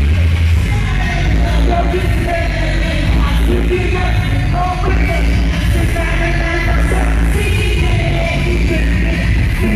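Live bass music played loud through a stage PA, with heavy, continuous low bass and a performer's voice over it.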